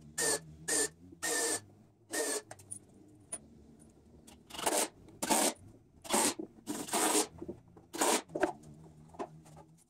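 Cordless drill-driver driving wood screws through a 2x6 into 2x4s, run in short trigger bursts: about a dozen brief whirs with a motor whine, with a lull of about two seconds partway through.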